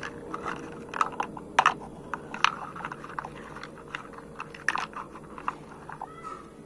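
Small hollow plastic toy pots, lids and cups clacking and knocking against one another as they are picked up and rummaged through: irregular sharp clicks, a few louder knocks in the first couple of seconds.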